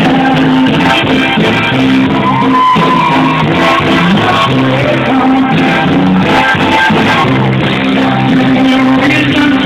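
Loud music with a singing voice over a repeating bass line.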